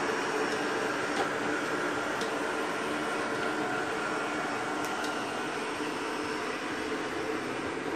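Two robot vacuum cleaners running, a steady whir and hum of their motors and brushes, with a few faint clicks.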